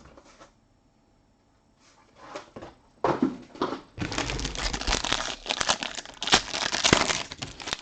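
Packaging of a trading-card box crinkling and tearing as it is opened by hand. A few scattered rustles come first, then dense crinkling from about four seconds in.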